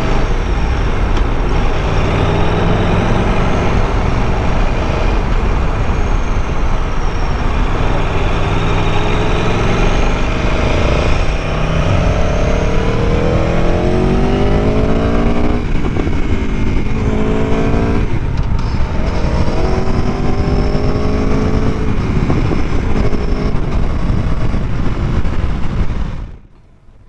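Aprilia Tuono V4 1100 V4 engine under way, heavy wind rumble over the helmet microphone. Engine pitch rises under acceleration and drops sharply twice, about 15 and 18 seconds in, as it shifts up a gear.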